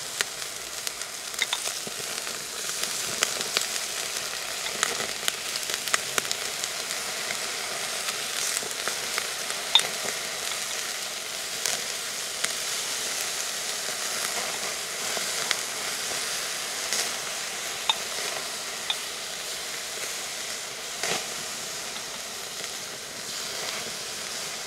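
Chicken yakitori skewers, brushed with tare, sizzling steadily on a wire grill over a charcoal shichirin, with frequent sharp crackles and pops.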